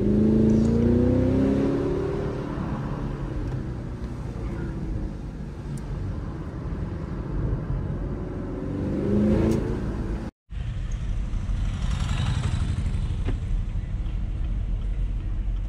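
Car engine revving up under hard acceleration, its pitch climbing and then easing off, and climbing again near the nine-second mark. The sound cuts out for a moment about ten seconds in, after which steady engine and road noise continue.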